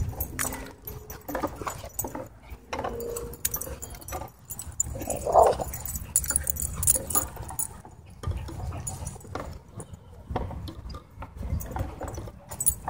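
Dogs playing rough: scuffling and running on dirt, with collar tags jingling and dog vocal sounds. The loudest is one short yelp or bark about five seconds in.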